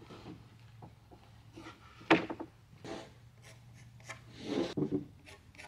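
2x6 lumber boards handled on a stack and turned crown-up: a sharp wooden knock about two seconds in as one board drops against the others, then boards scraping and rubbing together near the end, with a few light clacks between.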